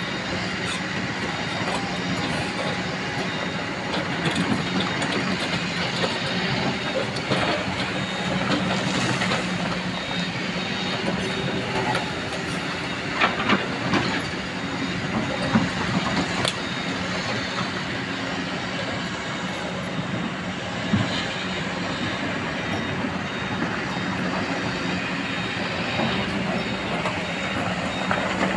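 Hydraulic excavator's diesel engine running steadily, with a few sharp metallic knocks and clanks from the machine working, clustered in the middle and once more later.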